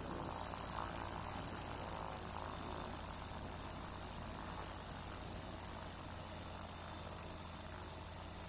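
Faint, steady low hum over the aircraft intercom: the Zenith CH 701's ZD C100 engine, a Rotax 912ULS clone, idling on the ground.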